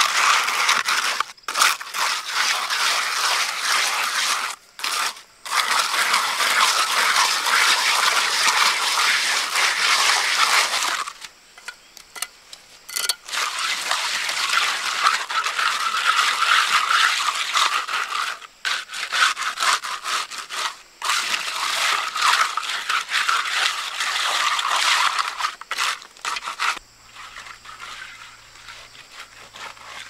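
Steel trowel scraping and smoothing a freshly laid wet cement floor, in long runs of strokes with short pauses, stopping near the end.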